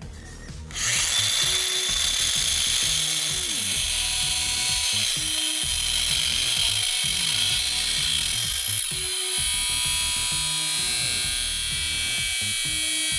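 Angle grinder cutting into a metal piece clamped in a vise: a steady high whine and hiss of the disc on metal that starts about a second in and runs on steadily. Music plays underneath.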